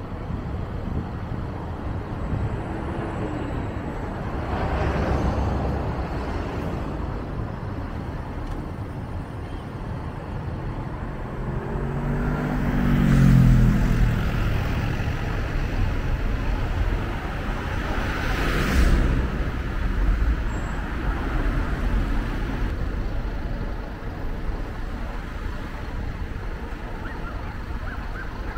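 Steady road and traffic noise while driving through city streets, with other vehicles passing. About halfway through, a passing vehicle's engine note swells and fades, the loudest moment, and smaller passes follow a few seconds before and after.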